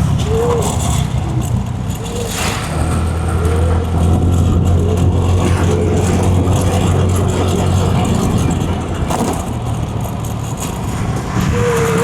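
Motor vehicle running on the road: a steady low engine drone with road noise, strongest in the middle and easing off after about eight seconds.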